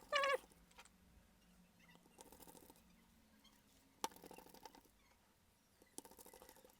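Small screws being driven into a phone's frame with a precision screwdriver: a brief squeak at the start, then three short bursts of fine rapid clicking about two seconds apart.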